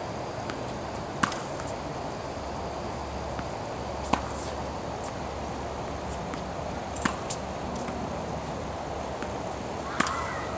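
Steady outdoor background noise with a short, sharp click about every three seconds, in step with a player's shadow forehand and backhand swings on a hard court.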